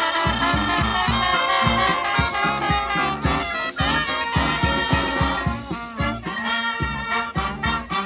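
Street brass band playing a swing-style tune live: trumpets, trombones and saxophones over a sousaphone bass line and a steady bass-drum beat.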